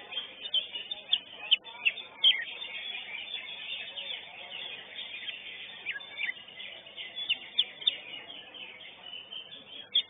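Cucak hijau (greater green leafbird) singing in short, sharp chirps and whistled notes that come in scattered bunches, a few in the first seconds, more near the middle, and a quick run at the very end, over steady background noise.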